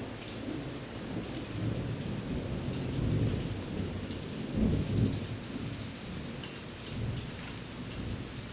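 Thunderstorm: steady rain with low, rolling thunder that swells twice, around three seconds in and again near five seconds.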